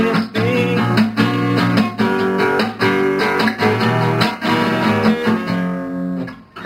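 Acoustic guitar strummed in full chords at a steady rhythm, the closing bars of a song after the last sung line. The strumming thins out and the sound dies away near the end.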